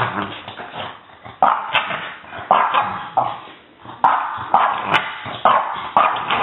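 French Bulldog puppy barking in play: a string of short, sharp barks about every half second, with a brief pause in the middle.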